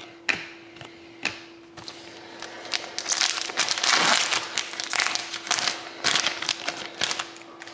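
Foil wrapper of a 2013-14 Upper Deck Artifacts hockey card pack being torn open and peeled back by hand, a dense run of sharp crinkling crackles from about three seconds in. A few light clicks come before it.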